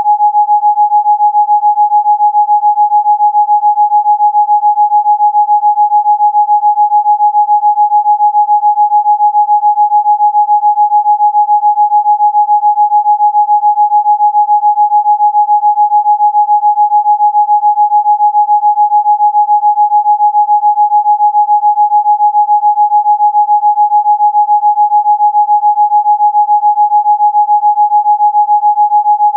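A steady electronic Rife-frequency tone: one pure, unwavering, fairly high-pitched note held throughout, with no other sound.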